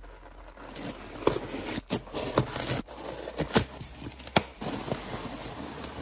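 Cardboard parcel being opened: a craft knife slitting packing tape, then the tape and box flaps ripped open with a series of sharp snaps and tearing sounds. Foam packing peanuts rustle near the end.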